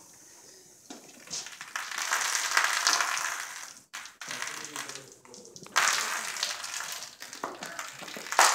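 Carbonated soda pouring from a plastic bottle and splashing over a person's head and onto the floor, in two long spells of hissing splashing with a short break between them.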